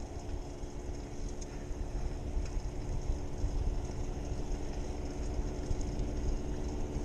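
Wind buffeting the microphone of a handlebar-mounted camera on a moving bicycle, over the rumble of its tyres rolling on asphalt. A steady droning hum runs underneath and grows a little louder near the end.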